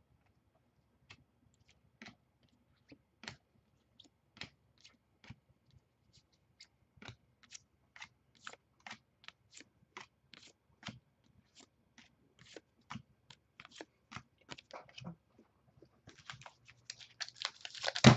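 Trading cards being flicked off a hand-held stack one by one, each with a short soft click, about two a second. Near the end, a crinkling foil pack wrapper being handled, ending in a loud crackle.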